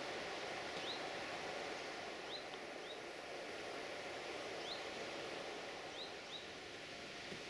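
A small bird giving short, rising chirps, repeated every second or so, over a steady rushing outdoor background.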